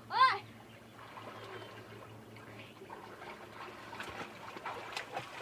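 A short, high, rising-then-falling call about a quarter-second in, then faint splashing and trickling water.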